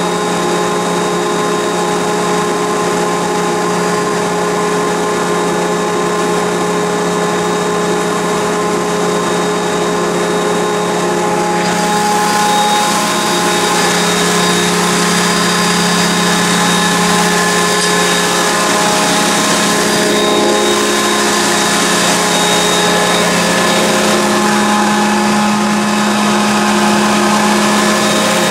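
Oil-flooded rotary screw air compressor running: a steady machine hum with several held tones, growing louder and hissier about twelve seconds in.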